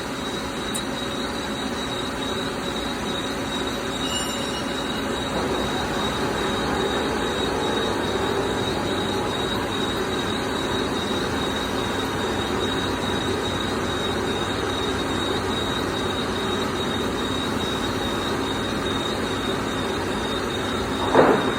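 Doosan PUMA GT2600 CNC lathe drilling SUS316 stainless steel with an ISCAR SumoCham drill: a steady cutting and machine noise with a constant high whine, and a brief louder squeal near the end.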